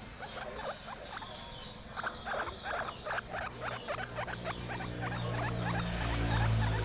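Guinea pig chewing fresh green leaves: rapid, crisp crunching, several bites a second. A low hum swells under it near the end.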